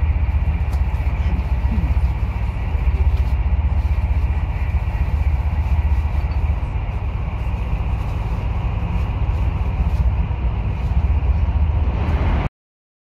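Steady low rumble of a moving passenger train, heard from inside the carriage; it cuts off suddenly near the end.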